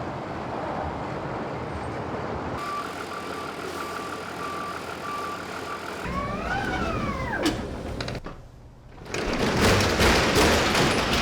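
Truck engine running with a reversing beeper pulsing steadily for a few seconds, then a brief rising-and-falling whine, and louder engine noise near the end.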